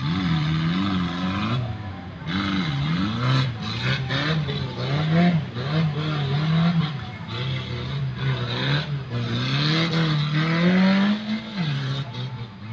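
Off-road 4x4's engine revving up and down over and over, its pitch rising and falling every second or so under bursts of throttle.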